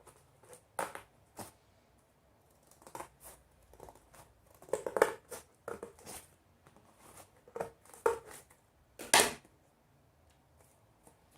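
Scissors snipping into paper, a string of short, irregular cuts with the loudest about nine seconds in, then a pause.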